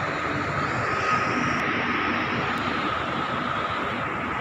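Steady rushing mechanical noise with a constant high whine running through it.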